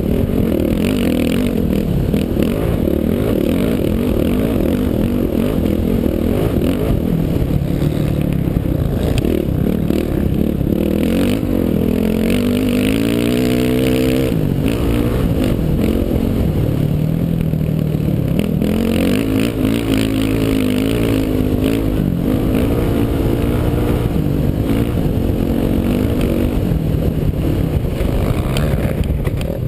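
Dirt bike engine running hard under way, its pitch climbing and falling with the throttle, rising steeply about halfway through and then dropping, over a steady rush of noise.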